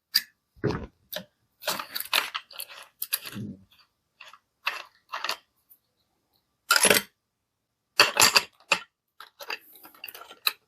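Irregular metallic clicks, clinks and knocks from handling an angle grinder's disc, flange nut and pin spanner while the cutting disc is changed, with a couple of louder clunks about two-thirds of the way through.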